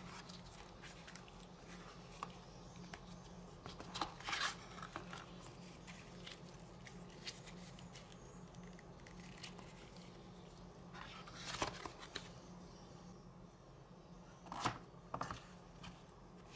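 Tablet packaging being handled during an unboxing: scattered light taps and rustles, with a few louder short tearing or crinkling sounds about four seconds in, near twelve seconds and near fifteen seconds.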